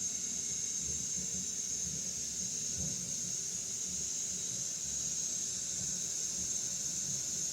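Steady high-pitched hiss with an irregular low rumble underneath.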